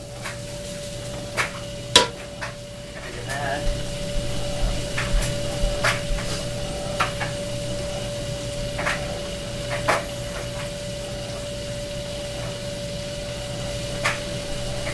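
Chopped bacon starting to sizzle as it fries in a nonstick pot, the sizzle growing louder a few seconds in. A wooden spoon stirring the bacon clicks and knocks against the pot, sharpest about two seconds in, with a few scattered clicks later.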